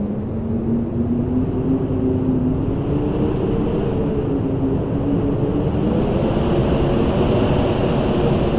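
Howling autumn wind: a steady low rush with several whistling tones that slowly rise and fall, and a higher, thinner whistle that swells from about halfway through.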